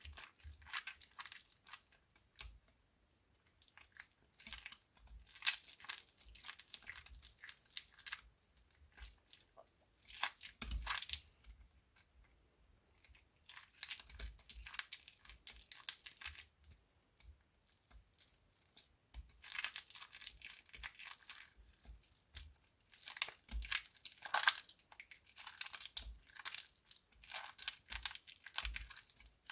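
Soaked glycerin soap plates crackling and crunching as they are worked by hand, in irregular spells of dense crackles with short pauses between.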